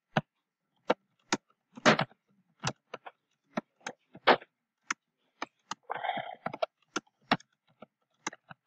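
Computer keyboard being typed on: sharp keystroke clicks at an uneven pace, about one or two a second.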